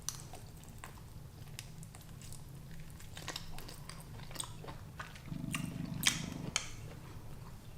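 A person chewing food with soft, scattered wet mouth clicks, picked up close to the microphone.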